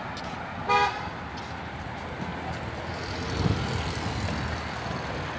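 A vehicle horn gives one short toot about a second in, over steady street traffic noise, with a brief low rumble a little past the middle.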